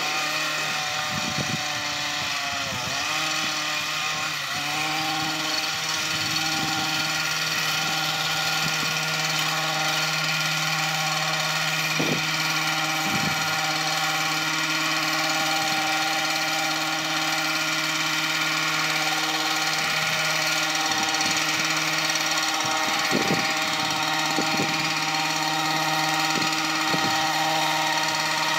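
Small-engine hedge trimmer running steadily at a constant pitch as shrubs are trimmed, with a brief dip in engine speed about three seconds in.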